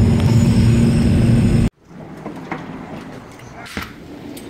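Airliner cabin noise: a loud steady rush with a low hum and a faint high whine, cutting off suddenly about a second and a half in. Then, much quieter, a door handle clicking and a patio door being opened, with a few knocks and rattles.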